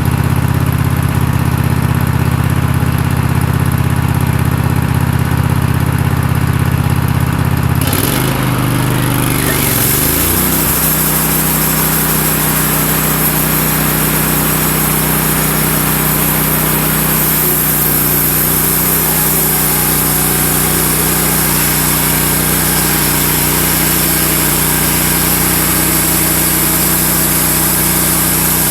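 Wood-Mizer LX150 bandsaw sawmill running steadily; about eight seconds in its note wavers for a couple of seconds and then settles into a different steady tone with a strong hiss on top, as the band blade works through a red oak log. The blade is a Wood-Mizer 9-degree blade that is getting a little tired.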